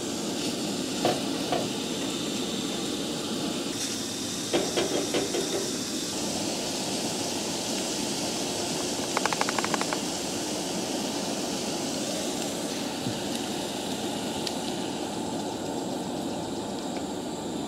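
Ground sausage sizzling in a cast-iron skillet on a Coleman camp stove, a steady hiss, with a few brief clatters about five seconds in and again near ten seconds.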